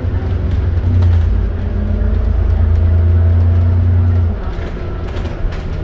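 Bus engine heard from inside the cabin, pulling with a steady low drone. About four seconds in it eases off and drops in level as the throttle is lifted and the bus coasts.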